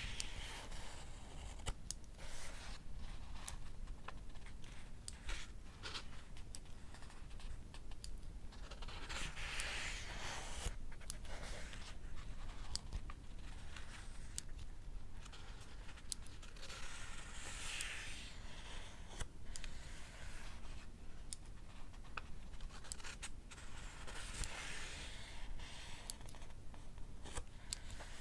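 Pages of a paperback book being turned about every seven or eight seconds, each a soft rustle, over frequent small sharp clicks of a mechanical pencil's lead being pushed out.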